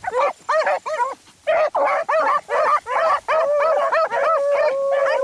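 A pack of beagles baying together on a rabbit's trail: rapid short barks from several dogs overlapping, with one long drawn-out bawl near the end.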